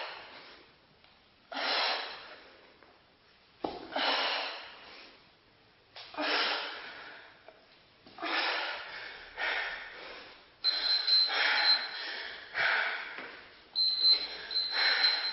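A woman breathing hard from exertion, heavy exhalations about every two seconds that come faster after about eight seconds as she tires at the end of a bodyweight workout. A high-pitched beeping tone comes in twice near the end.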